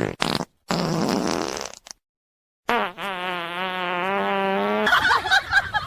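Prank fart sounds: a brief one at the start, a raspy one about a second long, then after a short silence a long, steady, pitched one lasting about two seconds.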